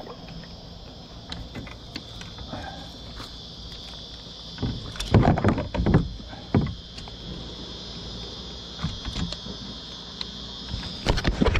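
Trouser fabric rubbing and brushing against the camera, with a few loud scuffs about five to seven seconds in and again near the end, over a steady high-pitched insect drone.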